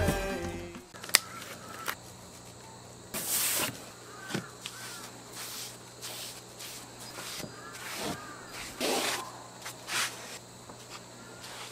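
A cloth is rubbed over a wooden board in a few short swishing strokes, wiping on varnish. Birds call now and then in the background, a click comes about a second in, and a steady low hum runs underneath.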